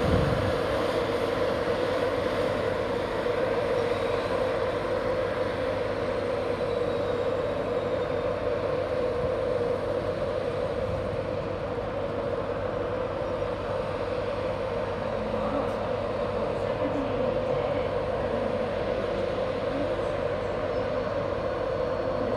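Virgin Trains East Coast InterCity 225 train with its Class 91 electric locomotive running slowly at the station, giving a steady hum that holds the same pitch and level throughout.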